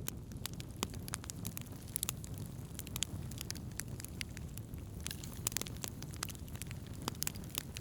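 Wood campfire burning, with frequent irregular sharp crackles and pops over a steady low rumble.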